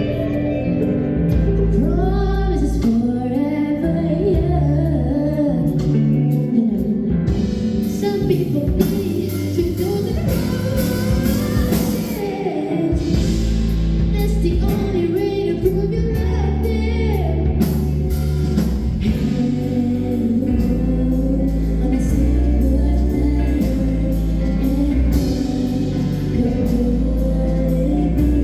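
Music with singing voices over a band, with held bass notes and guitar underneath.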